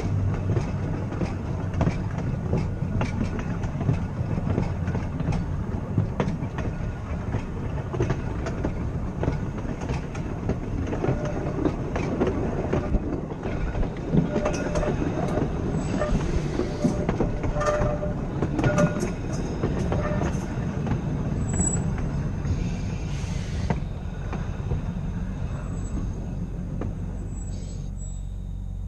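Blackpool "Boat" tram car 606 running along the track: a steady low rumble of wheels and running gear, with frequent clicks from the rail joints. Thin wheel squeals come in briefly about halfway through as it rounds a curve.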